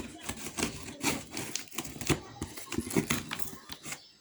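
Plastic and cardboard packaging being handled and opened, with dense irregular crinkling and clicking.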